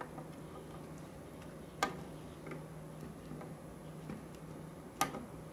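Flush cutters snipping the excess leads of a newly soldered electrolytic capacitor on a circuit board: two sharp clicks about three seconds apart, with a few fainter ticks. A faint steady low hum runs underneath.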